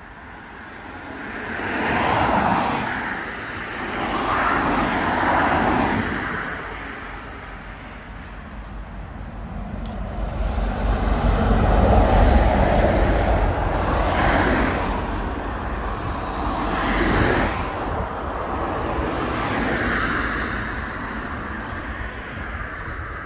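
Road traffic passing close by: several vehicles sweep past one after another, each rising and fading. The loudest and deepest is a lorry going by about halfway through.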